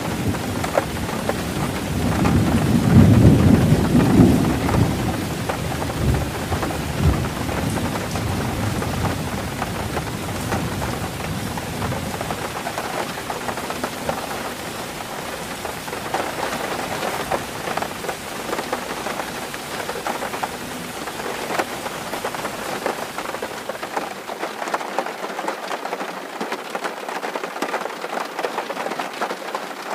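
Steady rain falling on a tin roof, with a roll of thunder in the first few seconds that dies away after about twelve seconds.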